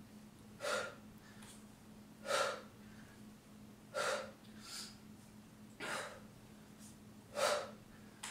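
A woman's sharp, forceful breaths timed to each dumbbell swing, about one every second and a half, five strong ones with a couple of softer breaths between.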